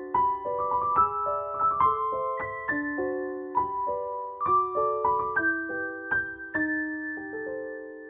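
Background solo piano music: a melody of struck notes, ending near the end on a chord that rings on and fades away.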